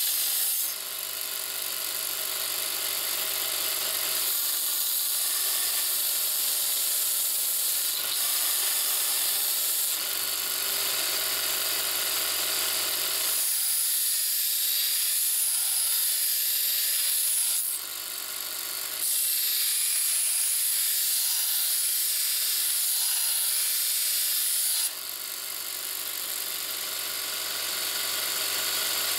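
Belt grinder driven by a bench-grinder motor, running while steel is ground on its abrasive belt: a steady motor hum under a loud, hissing grind. The sound dips briefly three times, about a second in, around 18 s and around 25 s.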